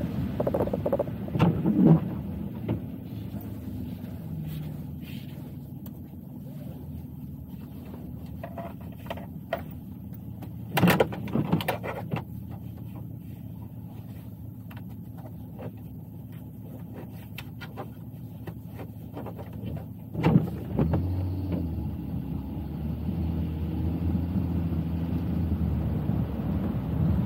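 Car driving: steady low engine and road rumble with a few sharp knocks, the loudest about a third of the way in. Near the end the engine hum rises as the car picks up speed.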